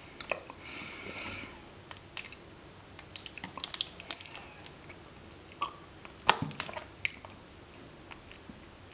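Close-miked wet chewing of honeycomb, with sticky smacking clicks. The sharpest click comes about six seconds in.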